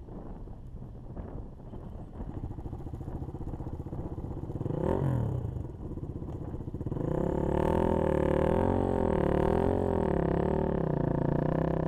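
KTM 450 EXC dirt bike's single-cylinder four-stroke engine running, with a quick rev up and back down about five seconds in. From about seven seconds a louder, steady pitched drone wavers up and down in pitch.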